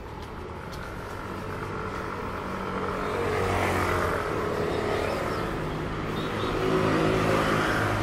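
Motor vehicles passing close by on a street, their engines growing louder to a peak about four seconds in and again near the end.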